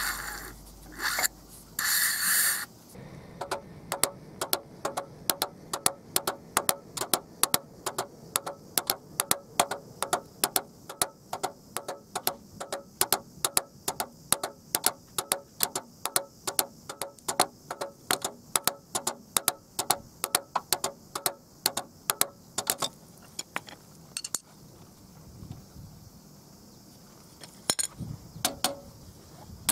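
Ratchet wrench clicking steadily, about two to three clicks a second, stopping about two-thirds of the way through, with a few more clicks near the end. A few louder metal scrapes come at the start.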